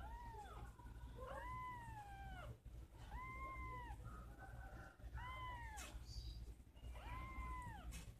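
Young kitten, about a month old, meowing five times in thin, high cries that rise and fall, while it is held and has eye ointment dabbed on its sore eye with a cotton bud.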